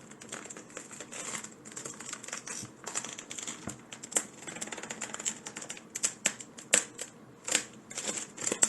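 Irregular clicking of a computer keyboard and mouse, with a few sharper, louder clicks in the second half.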